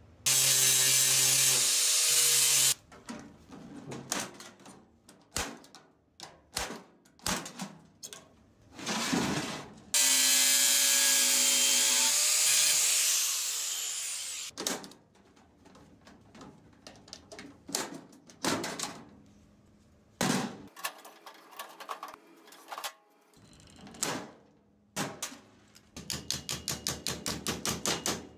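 A power drill runs twice, once briefly and once for about four seconds before winding down, drilling out the rivets that hold a handle on an aluminium stove. Scattered clicks and knocks of metal parts being handled fall between the runs. Near the end comes a quick series of light hammer taps on a metal strip lying on a steel table, about five a second.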